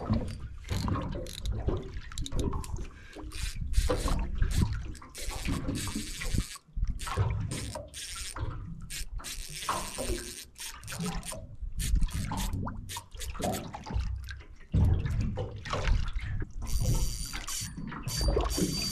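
Water slapping and splashing irregularly against the hull. Near the end a steady high whine joins in: the fishing reel's drag giving line as a big fish runs.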